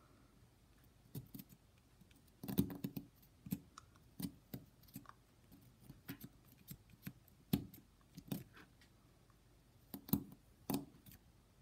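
Stanley knife blade scraping and picking at the plastic of a Dallas SmartWatch DS1216 module to clear room around the pins. It gives faint, irregular small clicks and scratches, coming in short clusters, with the sharpest tick about seven and a half seconds in.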